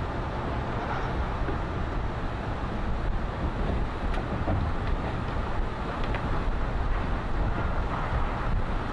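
Steady roar of wind buffeting the microphone, mixed with the rush of tsunami floodwater surging through a harbour. It is a dense, even noise heaviest in the low end, with no distinct events.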